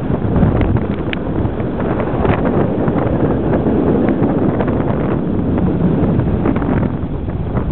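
Storm wind buffeting the microphone, with a steady rush of sea water foaming along the ship's hull beneath it.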